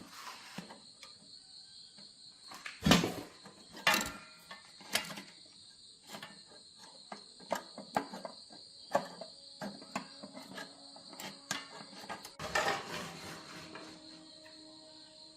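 Steady high drone of crickets, under scattered clicks and knocks from parts being handled during repair work; the loudest knocks come about three and four seconds in.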